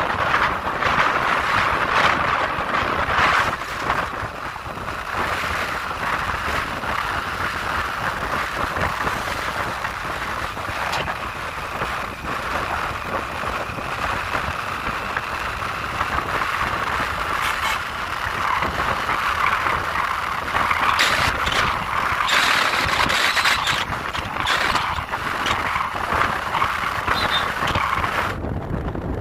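Road and wind noise from a vehicle moving along a highway: an even hiss with a faint steady high whine through the middle stretch.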